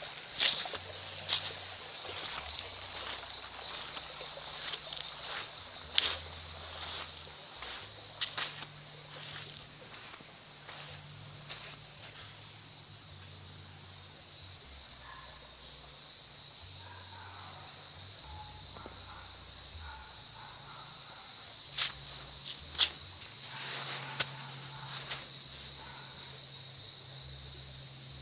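Steady, high-pitched chorus of insects such as crickets, shrill and unbroken. Scattered sharp clicks and knocks come through it, the loudest about six seconds in and again near the end, and faint chirps come in around the middle.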